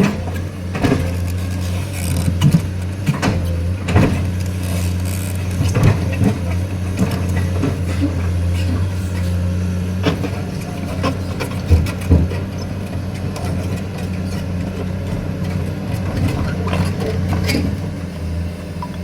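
Heavy diesel machinery engine running steadily with a low hum, with short knocks and clunks every second or few seconds, typical of an excavator loading a trailer.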